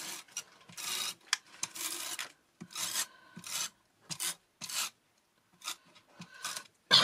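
Paper rubbing on card stock: a dozen or so short scraping strokes at an uneven pace as a die-cut paper panel is worked and pressed flat by hand.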